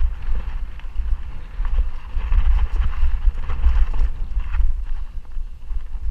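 A mountain bike rolling fast over a bumpy sandstone and dirt trail, with its tyres rumbling and the frame clattering over the rock. Wind buffets the camera microphone throughout.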